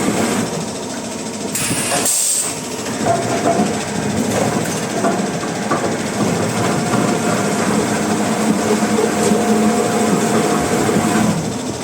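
Sawmill machinery running steadily with a continuous hum, briefly dipping about two seconds in.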